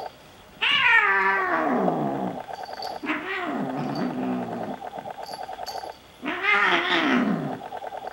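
Bengal kittens yowling while they wrestle: three long, wailing cries that fall in pitch, the first the loudest, with a rapid pulsing growl between them.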